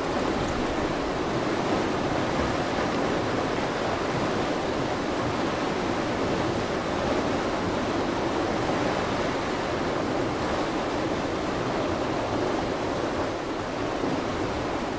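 Water rushing steadily into a canal lock chamber through the open paddles of the top gates as the lock fills, churning white water close by.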